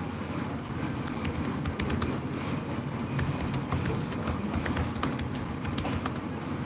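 Steady low background rumble with many light, irregular clicks scattered over it.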